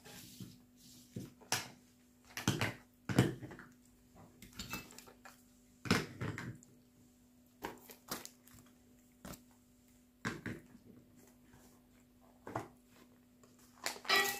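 Small metal items set down one by one on a table and stacked, with plastic bags rustling: a dozen or so irregular clacks and crinkles.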